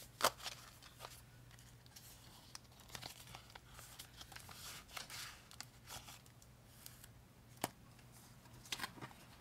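Faint rustling of paper banknotes and crinkling plastic binder pouches as they are handled, with a few sharp clicks, one just after the start and two near the end.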